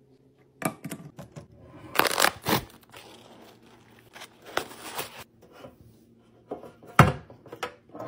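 Papery rustling and crinkling as a hand riffles through a stack of dryer sheets in their cardboard box, in several short spells. About seven seconds in, one hard knock as a laundry canister is set down on a wooden tabletop.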